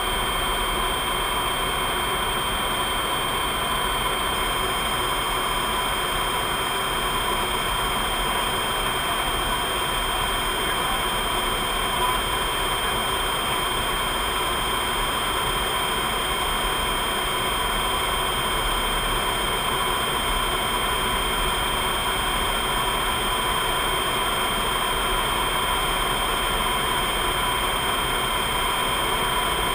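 Steady jet cockpit noise in cruising flight: an even rush of airflow with several constant high whining tones from the engine and aircraft systems, never changing in pitch or level.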